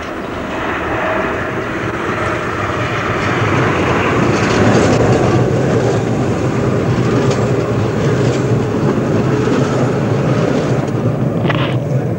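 A Budapest articulated electric tram approaching and passing close by, its wheels rumbling loudly on the rails. The noise builds over the first few seconds and stays up as the cars go past. It is quite noisy, which is put down to rails on concrete-slab track that are not ground ('scrubbed').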